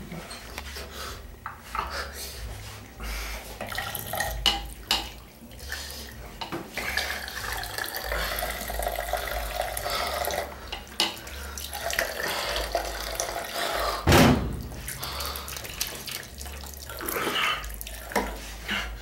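Water running from a bathroom sink tap and splashing in the basin. A single loud thump comes about fourteen seconds in.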